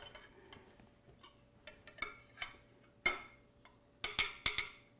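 A serving utensil clinking and scraping against a dish: a few light clicks, a stronger ringing clink about three seconds in, and a quick cluster of clinks just after four seconds.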